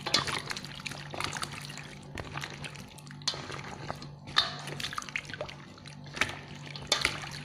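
Papaya slices being stirred and pressed under hot water in a bowl: irregular wet sloshing and dripping with soft clicks of a plastic spatula.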